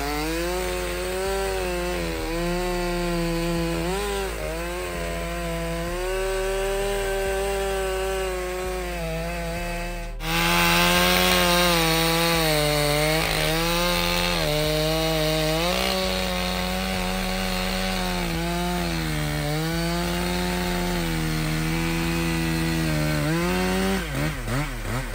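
STIHL MS661 C-M two-stroke chainsaw at high revs cutting wood. Its pitch sags and recovers again and again as the chain bogs down in the cut. About ten seconds in, the cutting suddenly turns louder and hissier.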